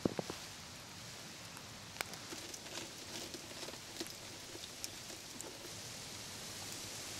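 Falling snow ticking on frozen branches and ground in the wind: a steady hiss with scattered light ticks, a few sharper ones right at the start, and the hiss swelling slightly near the end.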